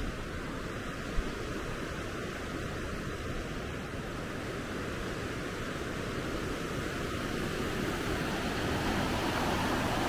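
Steady rush of water from the Yukawa River at Ryuzu Waterfall, growing a little louder toward the end, with one brief low thump about a second in.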